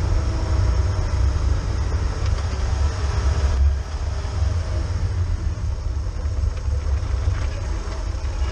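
Car driving along a road: a steady, heavy low rumble of engine, tyres and wind from a car in motion.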